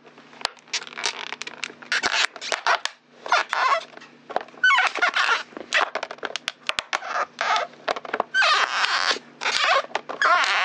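A clear plastic bottle being crushed under a heavy work boot, crackling and squeaking. It comes in repeated presses, about eight bursts, with high wavering squeals among the crackles.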